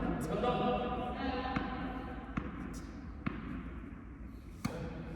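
A tennis ball bounced on an indoor court floor several times, about a second apart, with voices talking in the first second.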